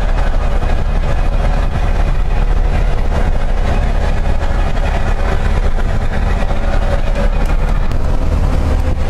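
Ford Ranger pickup driving along a dirt road, heard from inside the cab: a steady low rumble of engine and tyres.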